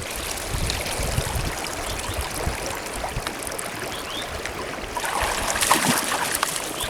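Water trickling and splashing, louder and fuller about five seconds in.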